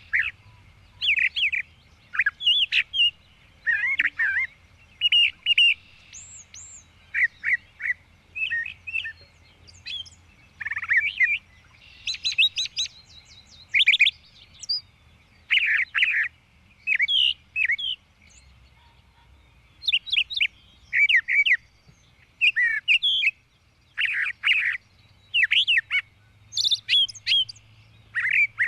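Birds chirping and singing: short bursts of quick chirps and whistled notes, one after another about every second, with brief pauses between them.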